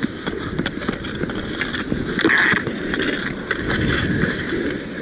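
Inline skate wheels rolling on a hard rink surface during roller hockey, with many sharp clacks of sticks and puck scattered through it and a short hiss a little after two seconds in.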